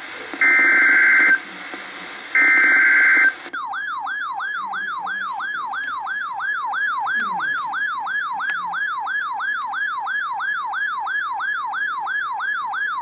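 Emergency Alert System broadcast: the last two of three short screeching SAME data-header bursts, each about a second long, then a siren-like attention tone that sweeps up and down about three times a second. Together these mark the start of a flood warning alert.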